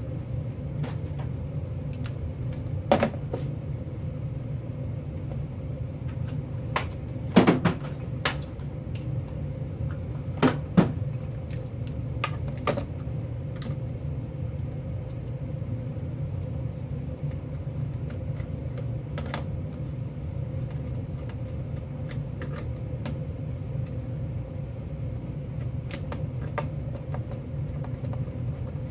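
Steady low hum with scattered sharp clicks and knocks, loudest in a cluster about a third of the way in.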